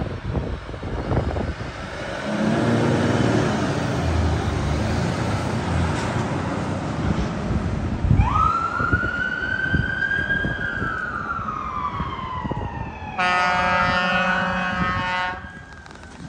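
Fire engine pulling away with its diesel engine running. About halfway through its siren starts, sweeping up quickly into a wail and then slowly falling in pitch. A steady horn blast of about two seconds follows near the end.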